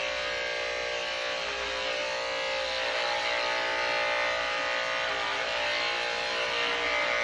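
Cordless electric dog clipper running with a steady hum while shaving a border collie's coat short.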